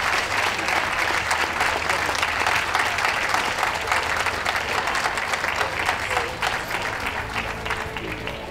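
Ringside audience applauding, many hands clapping at once, thinning out near the end.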